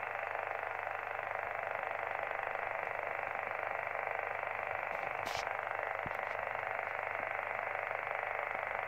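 Small Yaesu transceiver receiving steady hiss-like interference on the 6-metre band near 50.275 MHz, strong enough to hold the signal meter at S5 to S6. A brief click about five seconds in.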